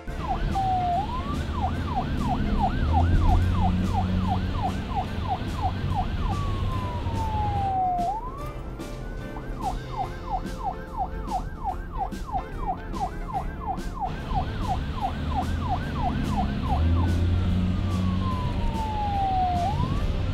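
Police siren sound, alternating a fast yelp of about three rising-and-falling sweeps a second with slow falling wails, the sequence going round twice over a low rumble.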